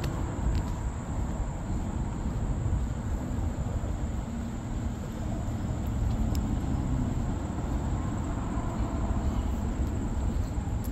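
Steady outdoor background noise: a low rumble with a thin, steady high-pitched drone above it, like insects calling.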